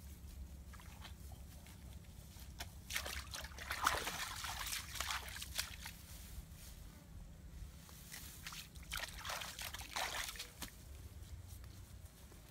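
Hands rubbing and scraping the charred skin and burnt straw off a straw-roasted fish in a wicker basket: two spells of crackly rustling scraping, a few seconds in and again near the end, with faint ticks between.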